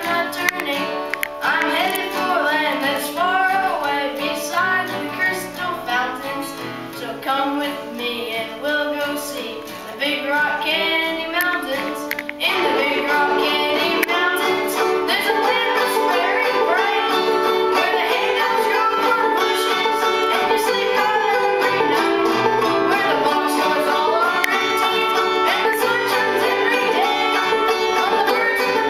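Clawhammer banjo and acoustic guitar playing an old-time tune, with a boy singing along. About twelve seconds in, the music gets louder and fuller.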